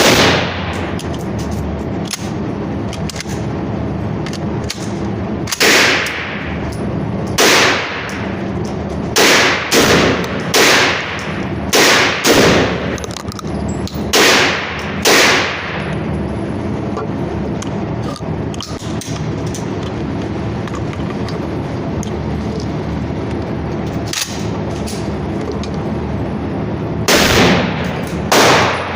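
AR-15 rifle in .223/5.56 fired semi-automatically, about a dozen single shots at an uneven pace with a ringing echo after each, a quick run of them in the middle and two more near the end. Fainter shots crack in the background between them.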